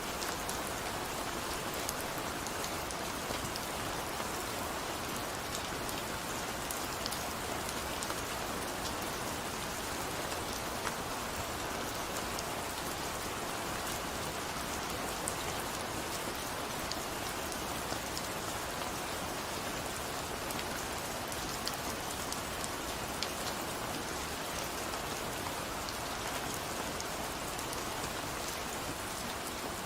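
Steady rain falling, with the constant hiss of the shower and many small drops ticking on a surface.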